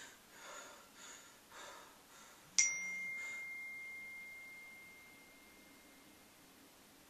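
A few heavy breaths, then a single sharp bell-like ding about two and a half seconds in that rings on one high tone and slowly fades away over about four seconds.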